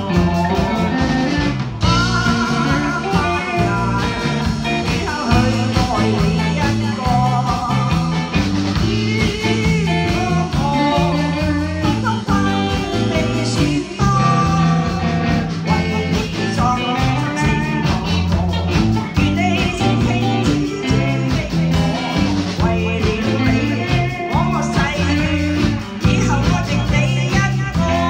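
Band music: a Chinese pop song with guitar, a moving bass line and a steady beat, with a sung or guitar melody line over it.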